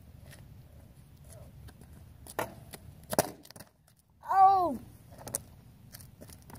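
A few sharp knocks, then a short vocal exclamation from a boy about four seconds in, its pitch rising and then falling. This is the loudest sound, and another knock follows it.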